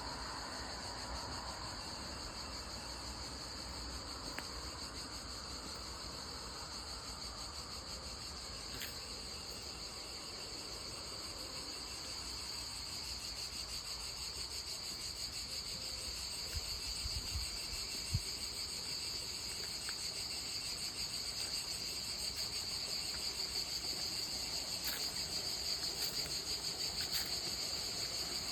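Steady chorus of insects trilling, a high continuous shrill with a fast pulsing texture that holds throughout, with a few faint clicks.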